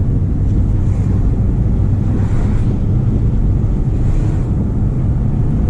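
Mustang GT's 5.0 V8 and drivetrain heard from inside the car while driving under load: a steady low rumble with road and wind noise. The car has a bad vibration under load around 2000 rpm, which the driver suspects is the clutch, flywheel or transmission.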